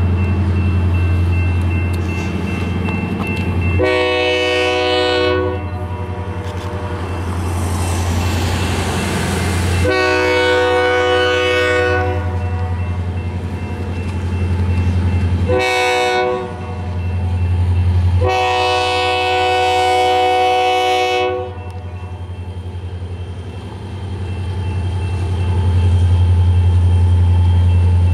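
Diesel freight locomotive's multi-chime air horn blowing four blasts, long, long, short, long, the standard grade-crossing signal, over the steady low rumble of the train. The last long blast is the longest.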